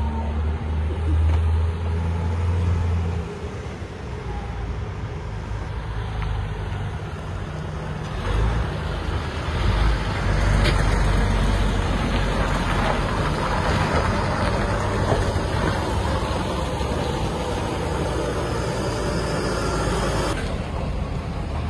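Diesel engines of semi-trucks running as they drive past one after another, loudest about ten seconds in as one passes close by.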